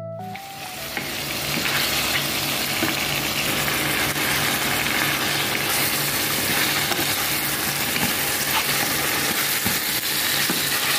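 Chopped onions and chicken pieces sizzling in hot oil in a stainless steel pot as the onions brown. The sizzle swells over the first couple of seconds, then holds steady.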